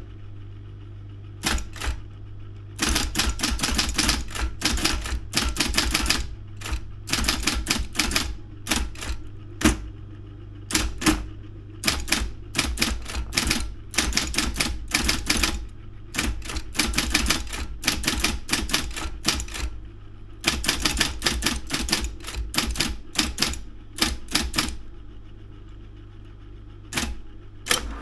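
Daro 202 electric typewriter being typed on in quick runs of key strikes with short pauses between them. The steady hum of its running motor sits underneath throughout.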